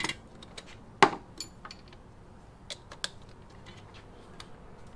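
Scattered metallic clicks and clinks of hand tools and bolts being handled during suspension work, the loudest a sharp knock about a second in.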